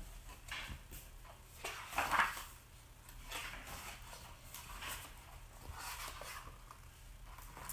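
Pages of a picture book being turned and the book handled: a string of short paper rustles and soft knocks, the loudest about two seconds in.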